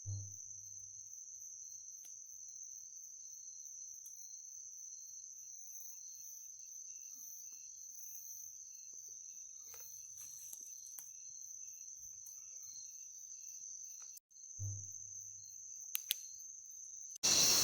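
A cricket singing one steady, high-pitched trill in the night forest, breaking off briefly about fourteen seconds in. Two brief low thumps come, one at the start and one near fourteen and a half seconds. A loud hiss starts suddenly near the end.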